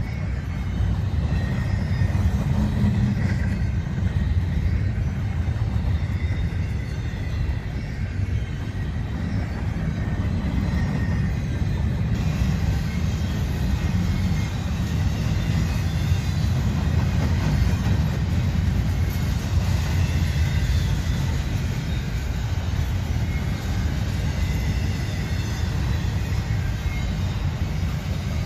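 Freight train of intermodal well cars rolling past, a steady low rumble of steel wheels on rail.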